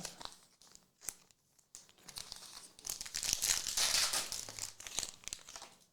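Foil trading-card pack being torn open and crinkled, after a few light clicks of cards being handled in the first couple of seconds.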